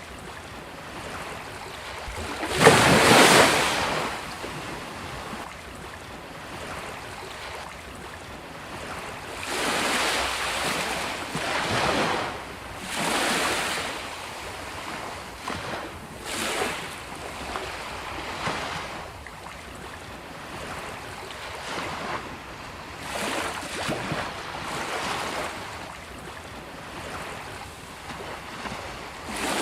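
Ocean waves breaking on a beach, one surge after another every few seconds over a steady wash of surf; the loudest break comes about three seconds in.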